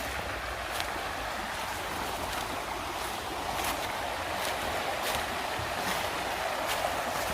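River water rushing steadily past, an even hiss with a few faint ticks scattered over it.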